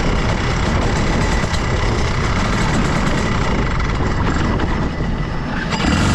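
Rotax Senior kart's 125cc single-cylinder two-stroke engine running. Its sound shifts just before the end to a louder, lower rumble.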